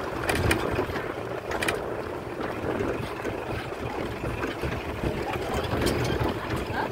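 Wind buffeting the microphone as a steady, uneven rumble, with a few light clicks of the camera being handled.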